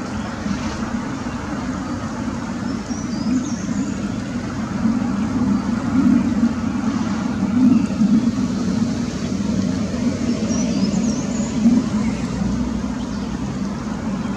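Steady rush of a shallow stream running over stones, with two short bursts of faint, high bird chirps, a few seconds in and again about eleven seconds in.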